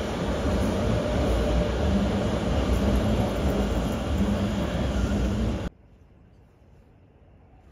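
Oslo T-bane metro train running along the track: a steady rumble of wheels and running gear that cuts off abruptly near the end, leaving only a faint background.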